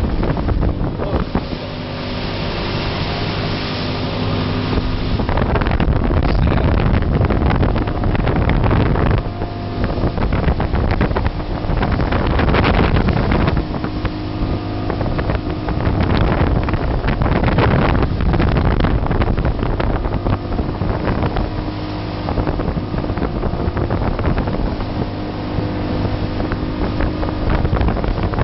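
A motorboat's engine running steadily, with wind buffeting the microphone.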